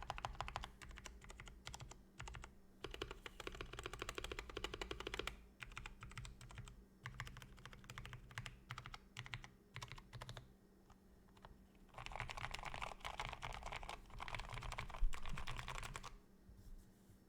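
Keychron C2 mechanical keyboard with lubed Gateron Brown tactile switches and a foam- and tape-modded case being typed on: dense fast runs of keystrokes with sparser stretches and a short pause between. One stroke near the end is louder than the rest, and the typing stops shortly before the end.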